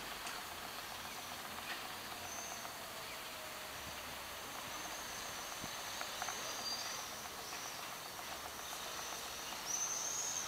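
Small birds chirping faintly and high over a steady outdoor background hiss, with one louder, falling chirp near the end.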